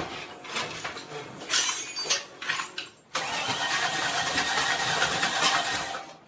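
An engine on a stand being cranked over: a sharp pop right at the start, then uneven surges for about three seconds. The cranking cuts off abruptly, then resumes steadily for about three more seconds before stopping suddenly.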